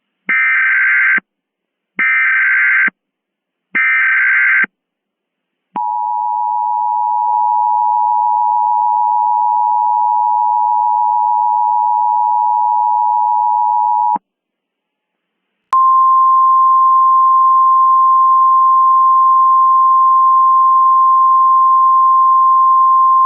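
Emergency Alert System tones: three one-second bursts of warbling SAME header data, then the two-note EAS attention signal held for about eight seconds. After a brief gap a single steady alert tone starts and carries on.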